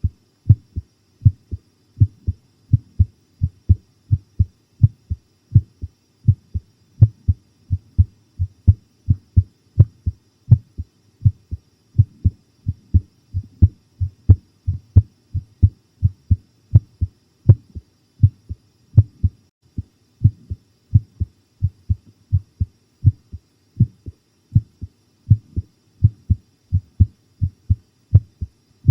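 Human heartbeat heard close against the chest: a steady run of paired lub-dub thuds, pounding from the fright of watching a horror show.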